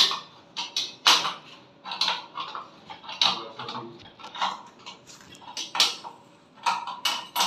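Sharp metallic clinks and taps, irregular, about two a second, of metal tools and hardware as the nut holding an electric water heater on its wall bracket is tightened.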